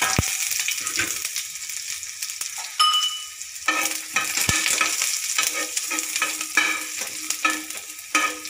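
Onion pieces and dried red chillies sizzling in hot oil in a small pan, frying for a tempering (tadka). From about four seconds in, a metal spoon stirs and scrapes the bottom of the pan in repeated strokes.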